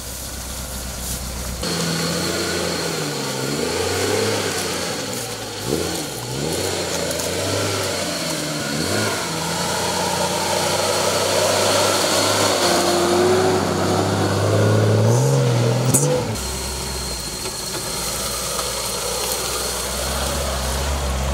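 Off-road 4x4's engine revving up and down repeatedly, its pitch rising and falling, then a sharp knock about three-quarters of the way through, after which the engine settles to a steady idle.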